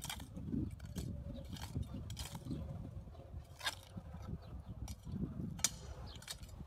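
Short-handled hoe chopping into soil while digging a hole: irregular sharp strikes roughly once a second, over a steady low rumble.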